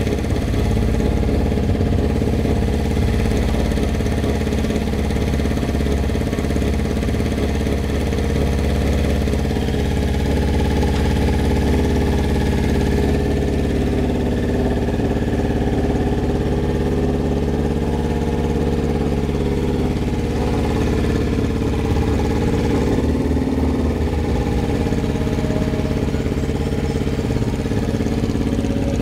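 Carbureted sport motorcycle engine running steadily near idle on freshly retuned carburetors, with slight rises and dips in pitch as the bike is eased along at low speed.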